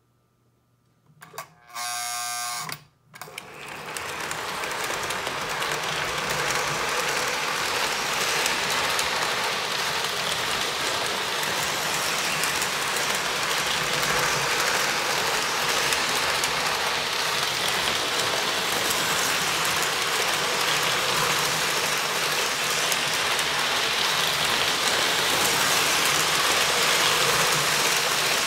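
Postwar Lionel 623 NW2 switcher running a long train of O-gauge freight cars on three-rail tubular track: a steady mechanical clatter of motor, gears and wheels on the rails that starts about three seconds in, after a brief buzzing tone. The locomotive is freshly serviced, with new motor brushes and greased gears, and is running smoothly.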